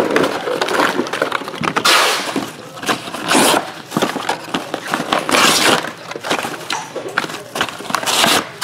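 Trading-card packaging being torn open and handled by hand: a string of short rustling, crinkling and tearing swishes.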